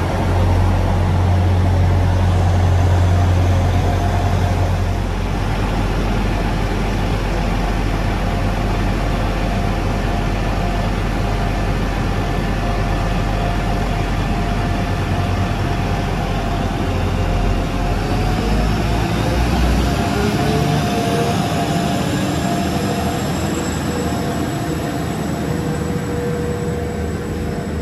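Class 175 diesel multiple unit running, a steady low diesel rumble with droning tones. About two-thirds of the way through the rumble drops away and a whine rises in pitch and then holds.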